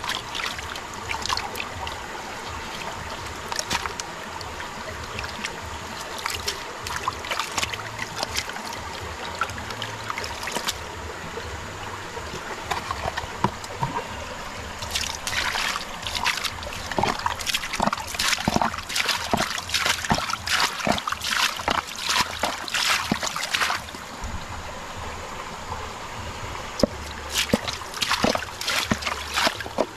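Muddy water trickling steadily while hands scrub and slosh gold-bearing ore in it, with bursts of splashing in the second half and again near the end.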